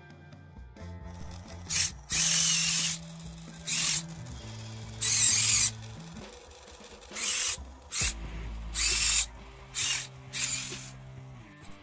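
Small electric drive motors of an RC tracked chassis running in short bursts, about nine times, with its metal tracks rattling as it is driven, over background music.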